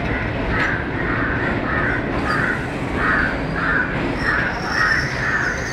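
A crow cawing over and over, about two caws a second, above the steady low rumble of a passenger train rolling slowly.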